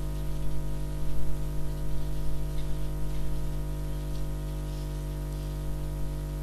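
Steady electrical mains hum with a stack of overtones and a background hiss from the microphone and sound system, with a few faint ticks in the first half.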